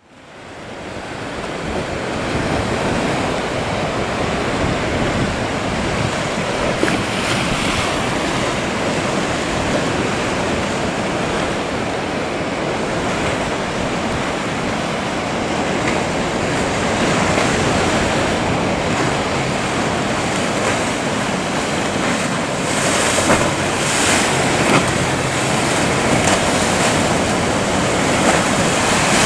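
Surf breaking and water rushing continuously, with wind on the microphone; it fades in over the first couple of seconds.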